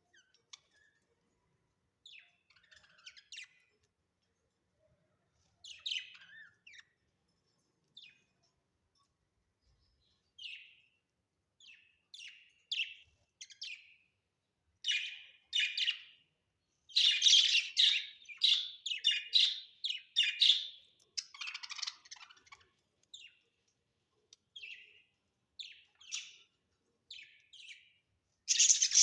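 Budgerigars chirping in short calls: sparse at first, then a busier, louder run of chirps from about halfway through.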